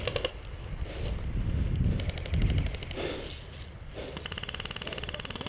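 Airsoft rifle firing rapid full-auto bursts: a short burst at the start, a fainter one about two seconds in, and a longer one from about four seconds in to the end, over a low rumble of wind and movement on the microphone.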